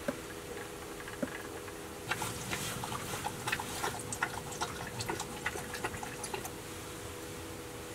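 Fishing reel being worked while a hooked fish is fought: a run of small, irregular clicks and ticks, several a second, starting about two seconds in and dying away near the end, over a steady low hum.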